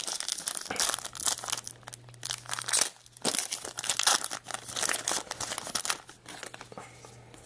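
Foil wrapper of a 2006 Bowman baseball card pack crinkling and tearing as it is opened by hand, in a quick irregular run of crackles.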